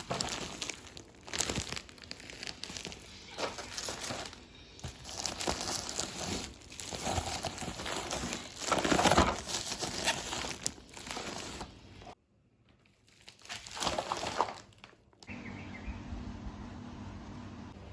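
Irregular crinkling and rustling handling noise, stopping briefly about twelve seconds in and returning for a short burst, then giving way to a faint steady hum.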